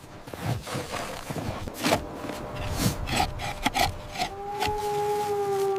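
Wood knocking and scraping, as when poles are worked and fitted. A long, slightly falling howl begins about four seconds in and holds.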